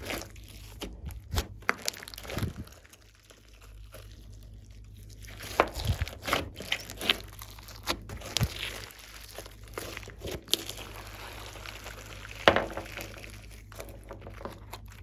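Slime being squished, pressed and stretched by hand, giving irregular sticky clicks, pops and crinkling, with a quieter stretch about three seconds in and one louder pop near the end.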